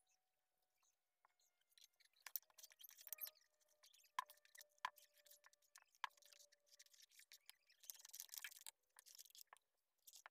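Faint wet squishing and scraping of a hand mixing semolina, flour and milk batter in a steel bowl, with three sharp knocks of steel utensils about four to six seconds in.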